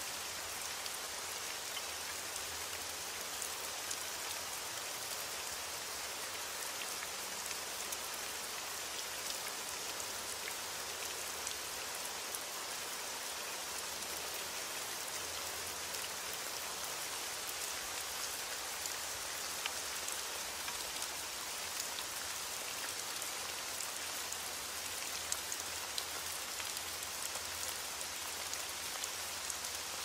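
Rain falling steadily: an even hiss with the sharp ticks of single drops scattered through it.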